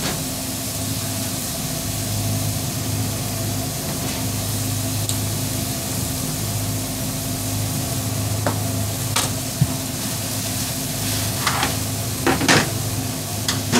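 Chicken, peppers and onions sizzling on a flat-top griddle, over a steady machine hum, with a few short knocks and scrapes in the second half.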